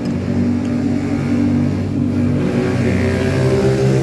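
Motor vehicle engine running steadily, then revving up with a rising pitch from about two and a half seconds in.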